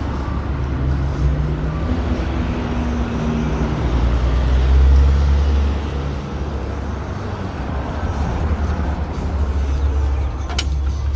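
City street traffic, a motor vehicle's engine rumbling loudest about halfway through. Near the end comes one sharp click as the payphone handset is handled.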